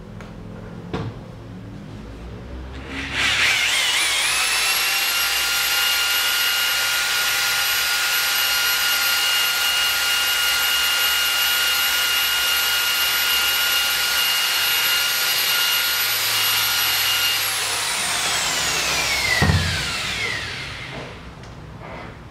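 Makita electric rotary polisher with a wool pad, buffing deep scratches out of car paint: it is switched on about three seconds in, spins up to a steady high whine, then is switched off and winds down with falling pitch, with a thump as it slows near the end.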